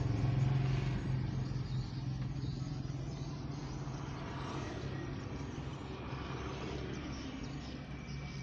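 A vehicle engine idling steadily, heard from inside the car's cabin, a little louder in the first couple of seconds and then even.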